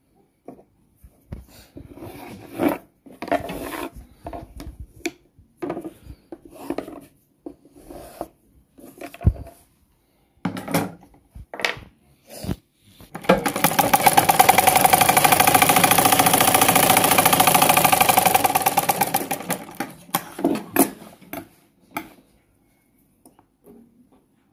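Scattered rustles and knocks of fabric being handled, then a sewing machine stitching for about seven seconds. Its rapid stitching builds up and eases off before a few last clicks.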